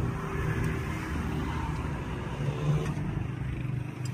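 An engine running steadily with a low hum, and a fainter higher tone about two to three seconds in.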